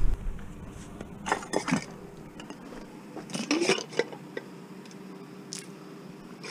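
Metal pot and its lid clinking and scraping together as it is handled and the lid is lifted: short clatters about a second in and again a little after three seconds, and a single click near the end.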